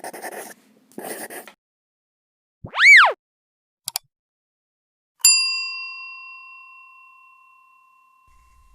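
Edited intro sound effects: two short bursts of hiss, a single swooping tone that rises and falls about three seconds in, and a brief click. A little past five seconds a bell-like ding sounds and rings on, fading away over about three seconds.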